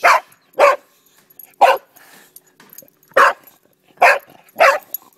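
A brindle boxer barking at a crab in the grass: six short, sharp barks spread unevenly over about five seconds.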